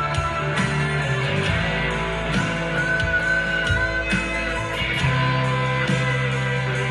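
Electric guitar, a Harley Benton SC-DLX played through a Blackstar ID15 TVP amp, playing sustained notes, with a high note held for about a second and a half midway. Underneath runs a steady bass line and light, evenly spaced percussive ticks.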